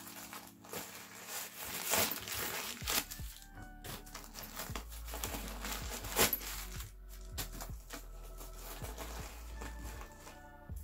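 Background music over the rustling and crinkling of a coated-canvas satchel being handled and its top zipper pulled open, with a few sharp crinkles about 2 and 6 seconds in.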